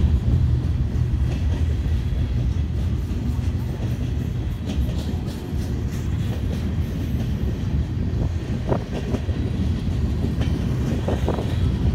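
Freight cars of a long train rolling past close by: a steady low rumble of steel wheels on rail, with scattered clicks and a few short squeals in the second half.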